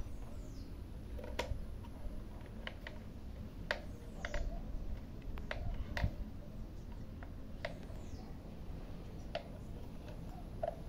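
Scattered light clicks and knocks from the plastic parts of a Toyota Yaris fuel pump module being handled and fitted together, one every second or so, over a low steady rumble.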